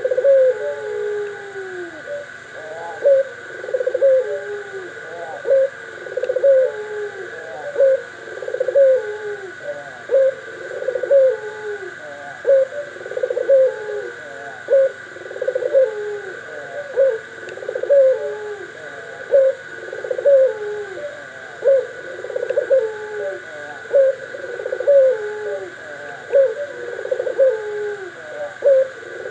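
Doves cooing over and over, short falling coos about once a second with several calls overlapping.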